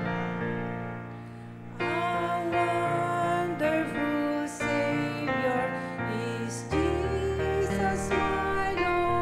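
A woman and a man singing a hymn duet over instrumental accompaniment. The music softens near the start, then a new sung phrase begins about two seconds in.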